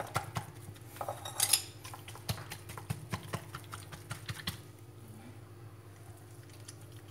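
A metal fork jabbing rapidly and repeatedly into raw pork belly skin on a wooden cutting board, pricking the skin deep so it blisters and crisps when fried. The taps come several a second, loudest about one and a half seconds in, and thin out after about four and a half seconds.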